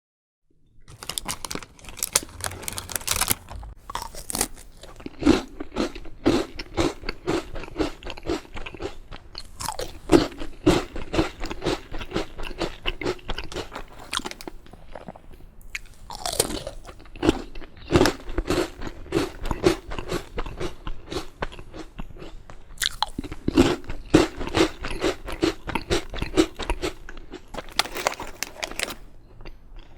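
A person biting into and chewing crunchy biscuits close to the microphone: sharp cracks as each bite snaps off, then rapid crunching chews at about two to three a second, in several bouts with short pauses between.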